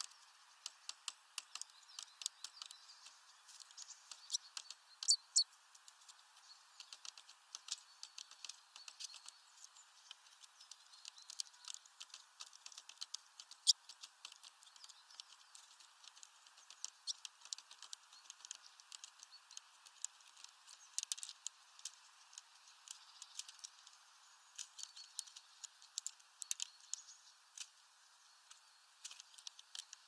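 Great tit pecking at peanuts through a mesh feeder bag: irregular sharp taps and clicks, several a second in clusters, over faint steady hiss.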